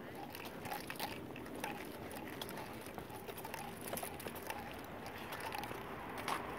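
Footsteps on dry grass scattered with fallen leaves, a run of short scuffing steps.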